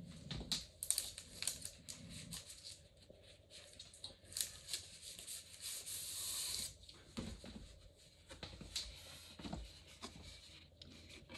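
A sheet of drawing paper being handled and laid on a desk: rustling with quick sharp crackles, then a longer sliding rustle about four to six seconds in. A couple of soft knocks come near the end.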